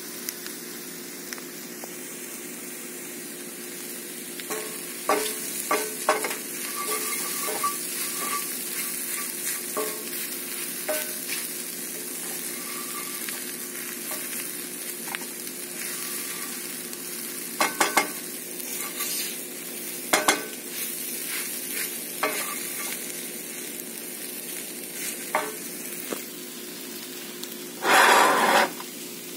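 Scrambled eggs sizzling in a cast-iron skillet while a wooden spoon stirs and scrapes them, with scattered knocks and scrapes of the spoon against the pan. A louder scrape about a second long comes near the end.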